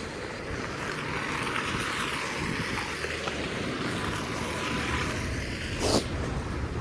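Street traffic on a snowy road: a hiss of tyres that swells and fades, over a low engine rumble, with a short sharp knock about six seconds in.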